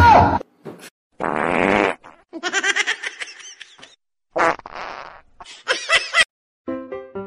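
Comic fart sound effects, two drawn-out ones about a second and about four and a half seconds in, alternating with high wavering squeaky sounds.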